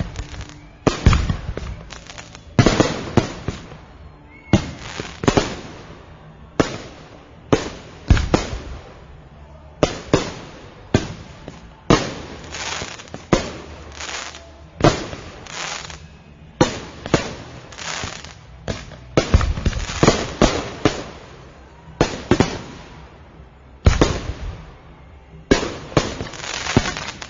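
Fireworks display: a continuous string of loud bangs, roughly one every second or two, each trailing off before the next.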